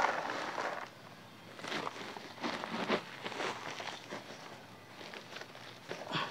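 Dry, crumbled garden soil pouring from a small tin can into a plastic basin at the start, then the can scooping soil out of a plastic sack with grainy rustling and crackling.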